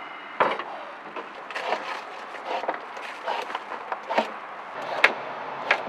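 Kitchen work sounds: irregular sharp knocks and clicks of utensils against pans and a cutting board, with short scrapes of a peeler on a carrot.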